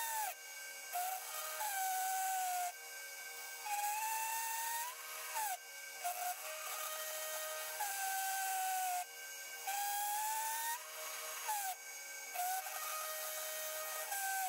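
Bridgeport milling machine running a very small end mill at high speed through cast aluminium. The cut gives a whining tone that slowly slides up in pitch and drops back every few seconds, and a hiss that comes and goes with each pass.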